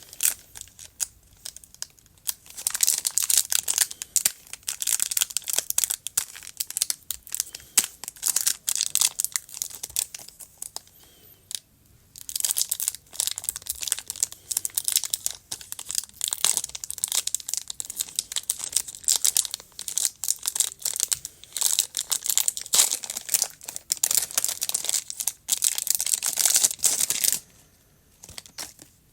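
Foil booster-pack wrapper crinkling and being torn open, a long run of dense crackles with a short pause about halfway through.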